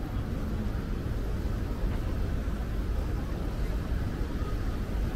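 Steady low rumble of outdoor urban background noise, even throughout with no distinct event standing out.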